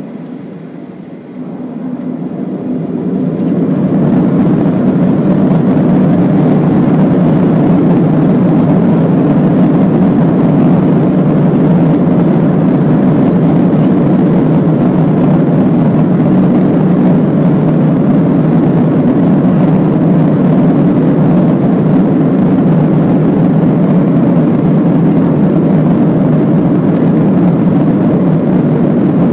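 Jet airliner engines spooling up to takeoff thrust, heard from inside the cabin. The low rumble rises over the first few seconds, then holds as a steady, loud noise of engines and runway rumble during the takeoff roll.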